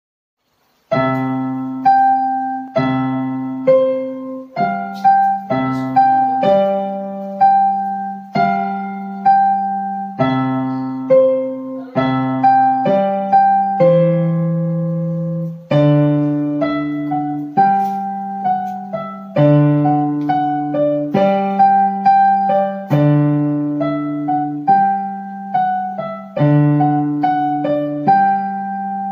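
Electronic keyboard on a piano sound playing the Allegro of a sonatina: a lively right-hand melody over held left-hand bass notes. It starts about a second in, with one longer held note about halfway through.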